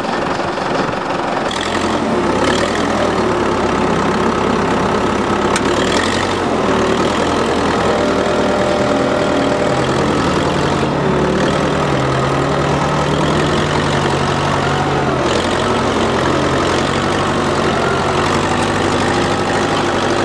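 A vehicle engine running continuously, its note shifting up and down a few times.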